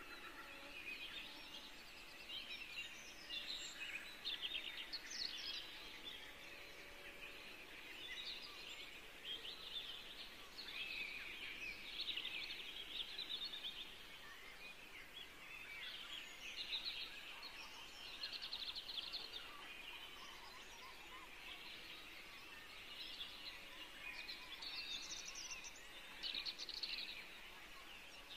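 Scissors cutting through satin fabric in repeated short runs of rapid snipping, each run lasting about a second.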